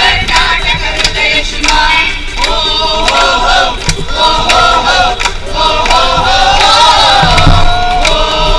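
Music: a song sung by a chorus of voices.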